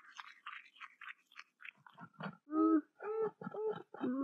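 Beaver calling: a run of short scratchy squeaks, then from about two seconds in a quick series of short whining calls, each with a clear pitch.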